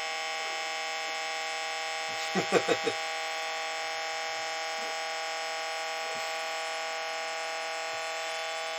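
CB radio's cooling fan running with a steady whine of many even tones, noise the owner blames on the radio. A quick run of four short sounds cuts in about two and a half seconds in.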